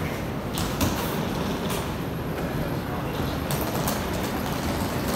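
Steady low rumble and noise of a train running, with a few light clicks and knocks.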